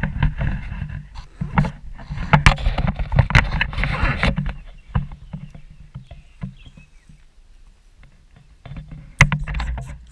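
ATV engine running with a low hum under a clatter of knocks and rattles, louder for the first four seconds and again near the end.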